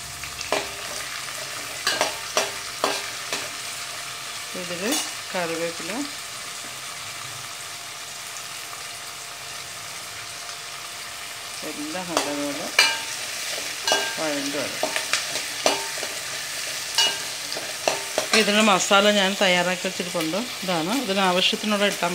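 Shallots, green chillies and curry leaves sizzling and frying in hot oil in an aluminium pan, stirred with a metal spatula that clicks and scrapes against the pan. The frying gets louder in the second half.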